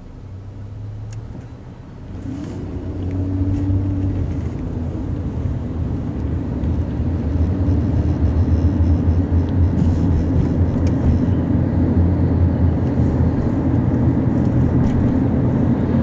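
Car engine and road noise heard from inside the cabin, growing louder as the car pulls away about two seconds in, then running steadily while it drives.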